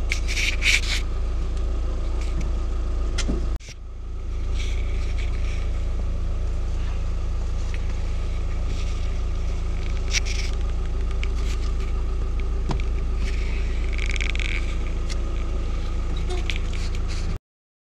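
Seat Leon's engine idling, heard from inside the cabin as a steady low hum, with a few brief scratchy noises on top. It cuts off abruptly near the end.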